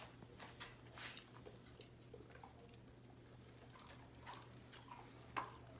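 Faint scattered clicks and shuffles of dogs shifting on the floor, over a steady low hum, with one sharper click about five seconds in.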